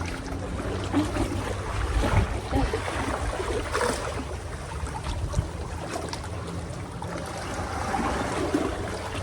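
Water washing and trickling at the shore, with wind rumbling on the microphone.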